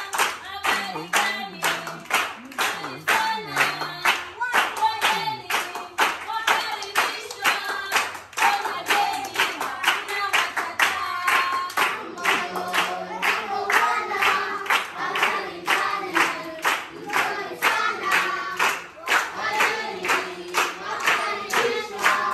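A group of children singing together with steady, rhythmic hand clapping in time, led by a woman's voice.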